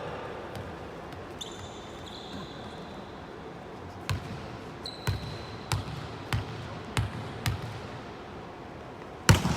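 A volleyball bounced on a gym floor six times, about one bounce every half second to second, then struck hard once near the end, as a player does when serving.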